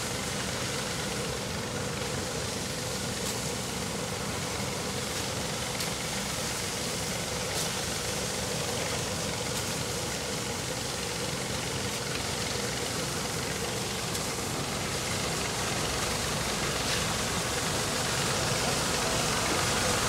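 Tractor-driven corn thresher running steadily, a continuous engine-and-machine noise that grows a little louder near the end.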